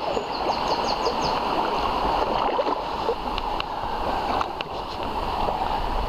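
Canoe paddles stroking through river water, with the current rushing and splashing along a rigid canoe's hull and a few faint clicks.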